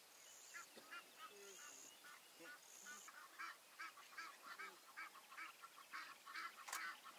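Faint bird calls: a quick series of short, repeated calls, about two to three a second, growing denser toward the end, with a high thin note repeating about once a second in the first few seconds.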